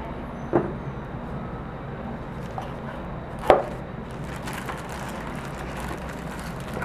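Knocks and light plastic rustling as a bagged computer keyboard is gripped and handled in its cardboard box. There are two sharp knocks, the second, about three and a half seconds in, the loudest, followed by fainter clicks and crinkling of the plastic bag.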